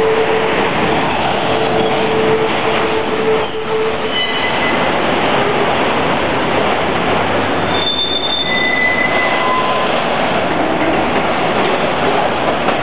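A train running through a station, a loud steady rumble of wheels on rails. Brief squeals from the wheels come and go: a lower one in the first few seconds, then higher-pitched ones later.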